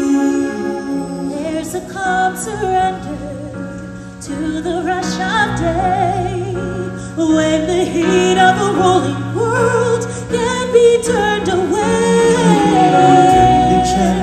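Live stage-show music: a vocalist sings a wavering melody over held chords and a steady bass. The voice comes in about a second and a half in, and the bass grows heavier near the end.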